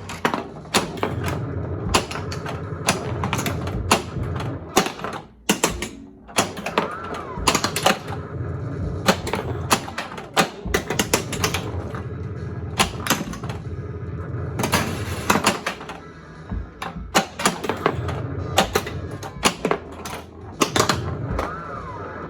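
Williams Big Guns pinball machine in play: rapid clacking of flippers and solenoids and the ball knocking against targets and bumpers, over the game's electronic sound effects and music.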